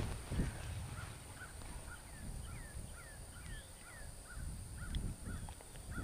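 Birds calling in the background: many short repeated calls, several a second, some sliding down in pitch, over a low uneven rumble.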